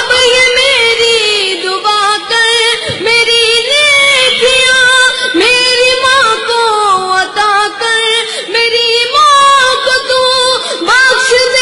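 A boy singing an Urdu poem in a high voice, drawing out long ornamented phrases whose pitch slides and wavers, with only brief breaths between them.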